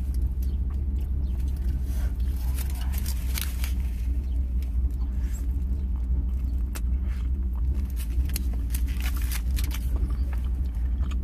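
Close-up eating sounds: chewing and mouth noises with many short sharp clicks and crinkles as a burrito dipped in queso is eaten. Under them runs a steady low rumble.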